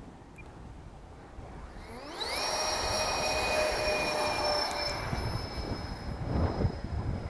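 Twin 80 mm electric ducted fans of a Freewing A-10 Warthog RC jet spooling up with a quick rising whine about two seconds in, then holding a steady high whine at full throttle for the takeoff roll.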